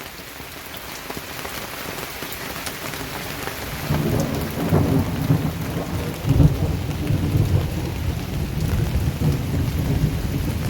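Heavy rain pouring in a thunderstorm, with a low rumble of thunder rolling in about four seconds in and loudest around six seconds.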